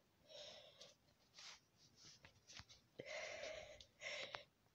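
Faint breathing close to the microphone, about four soft breaths, with a few small clicks in between.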